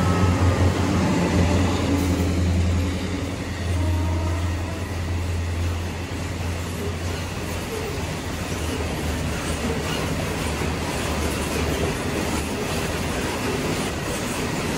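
Diesel freight locomotive passing close by, its engine's low drone strong for the first six seconds or so. Then a long string of container wagons rolls past with a steady rumble of wheels on the rails.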